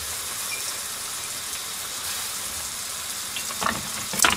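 Steady sizzling hiss of water boiling under a stainless steamer basket in which tsubu whelks are steaming in their shells. Near the end a few sharp clicks as chopsticks turn the whelks against the metal basket.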